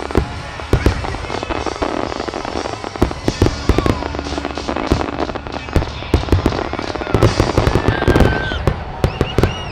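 Fireworks display going off: a dense, irregular run of sharp bangs and crackling reports, one after another.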